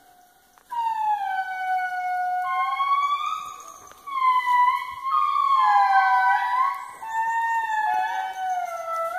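Indri lemurs singing their eerie song: long, pitched notes, each about a second, that mostly slide down in pitch, with at least two voices overlapping. The song starts about a second in after a brief pause.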